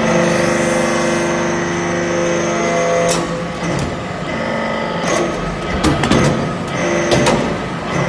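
Hydraulic briquetting press for metal chips working through its pressing cycle. A steady machine whine holds for about three seconds, then the tone changes and several sharp clicks and knocks follow in the second half.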